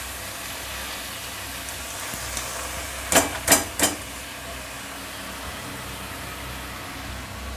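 Red amaranth leaves frying in hot oil with garlic in a wok, a steady sizzle. A little after three seconds in, three sharp knocks come in quick succession as the emptied plastic colander is knocked over the wok.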